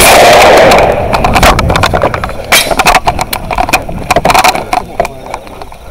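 Shotgun fire at close range. A loud, steady, overloaded rush for about the first second, then a string of sharp, irregularly spaced reports and clicks, the loudest about 1.5, 2.5, 3 and 4.5 seconds in, thinning out near the end.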